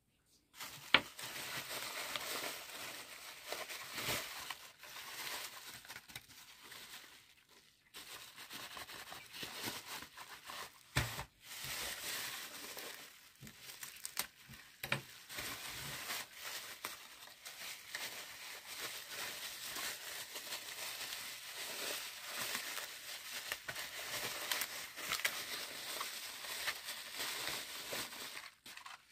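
Plastic bubble wrap crinkling as hands pull it off a toy remote-control car, with a brief pause about a quarter of the way in and a couple of dull knocks from the car being handled.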